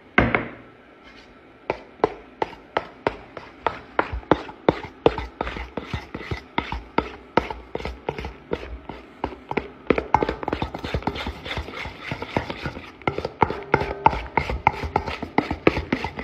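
Slime being mixed in a stainless steel bowl: a sharp knock right at the start, then steady rhythmic squelching and clicking strokes about three a second, growing busier about ten seconds in.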